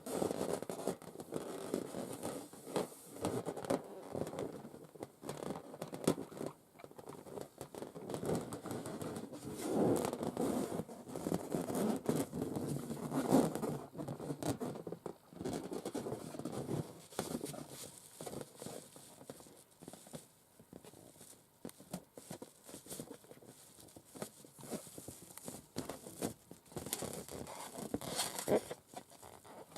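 Long acrylic nails scratching and tapping on the rubber of inflated balloons: a continuous run of rubbing scratches with many quick taps and clicks.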